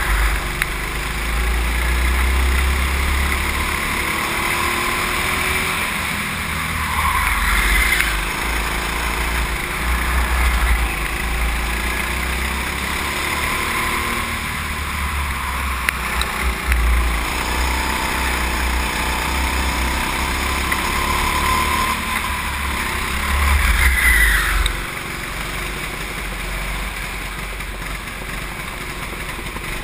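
Go-kart engine running under throttle, heard from a camera mounted on the kart, with its pitch rising twice as it accelerates. Heavy low wind rumble on the microphone drops away near the end.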